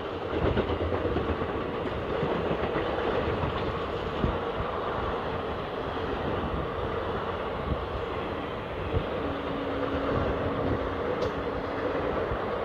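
Indian Railways passenger coaches rolling past on the adjacent track: a steady running rumble with the wheels clacking and knocking irregularly over the rail joints.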